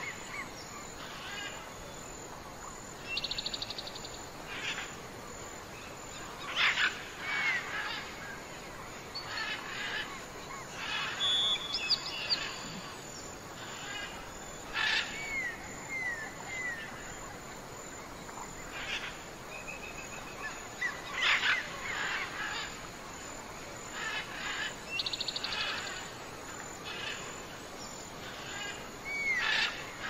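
Several wild birds calling: scattered sharp chirps, short curving whistles and a couple of quick rattling trills, over a steady background hiss.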